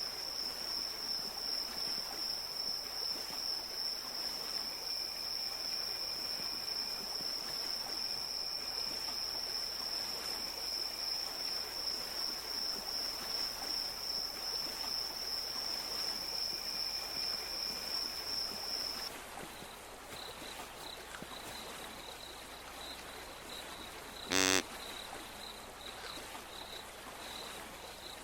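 Insects calling over a steady outdoor hiss: first a continuous high-pitched trill, then, after an abrupt change, a slower chirp pulsing about twice a second. One short, loud pitched call about three quarters of the way through.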